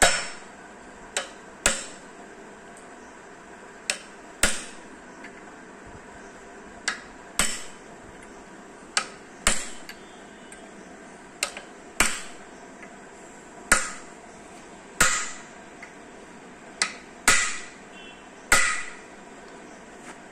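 Hammer tapping on metal at the front of a four-cylinder engine block, driving the crankshaft oil seal into place. Sharp taps with a short metallic ring come every second or two, often as a lighter tap followed half a second later by a harder one.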